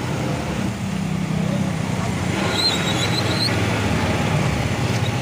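Steady street traffic noise with a low engine rumble. A brief high squealing tone comes about two and a half seconds in.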